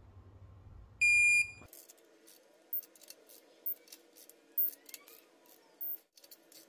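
A single loud electronic beep about a second in, then short sharp metallic clicks roughly a second apart from a torque wrench tightening ARP head-stud nuts to the first-stage 30 ft-lb.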